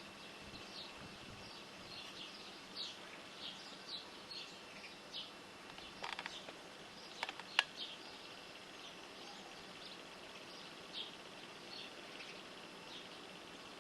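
Small birds chirping: short high chirps coming one at a time at irregular intervals over a faint steady hiss, with a few sharp clicks around six to seven and a half seconds in.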